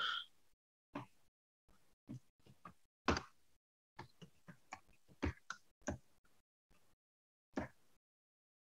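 Computer keyboard typing: irregular separate keystrokes, including deletions and a short word being typed, with pauses between them.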